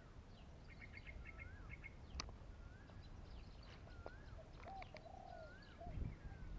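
Faint birdsong: a fast run of short high chirps, then a wavy whistled phrase repeated several times, with a few lower notes later. There is one sharp click a couple of seconds in and a low rumble near the end.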